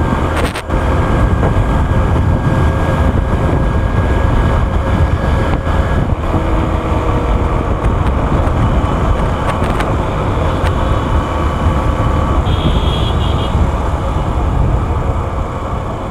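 Hero Hunk motorcycle's single-cylinder engine running steadily at cruising speed, heard from the rider's seat with a heavy rush of wind over the microphone.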